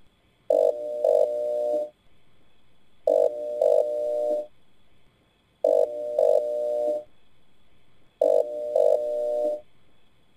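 A repeating pitched electronic tone, sounding four times about two and a half seconds apart; each lasts just over a second and opens with two accented pulses. A faint steady high tone hums in the gaps.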